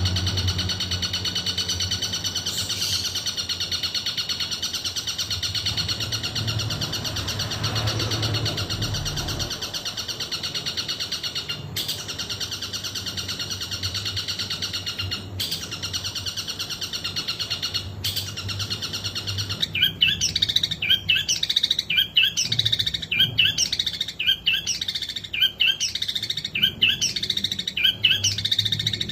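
Long-tailed shrike (cendet) singing a long 'tembakan' song: about twenty seconds of continuous rapid high chatter, then louder sharp notes repeated in a quick, even rhythm.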